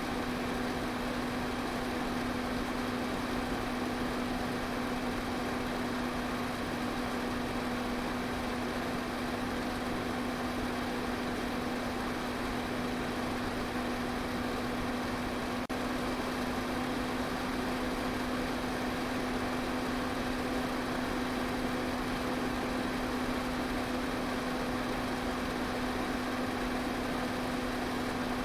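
Electric fan running steadily: an even rush of air over a constant low motor hum.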